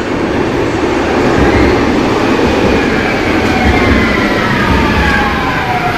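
Light-rail tram running through an underground station: a steady rumble of wheels on rail, with a whine from its electric traction motors that falls in pitch from about two seconds in as the tram brakes.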